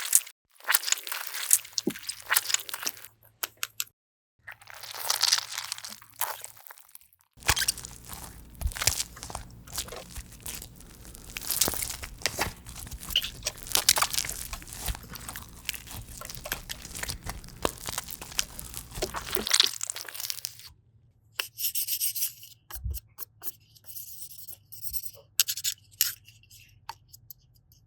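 Crisp crunching and crackling from a crunchy material being pressed and worked by hand, in short stretches at first, then continuous for a long stretch, thinning to scattered crackles near the end.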